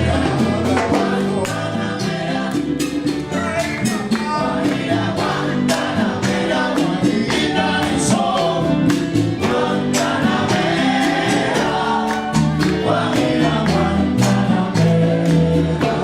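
Background music: a song with singing voices over a steady percussion beat.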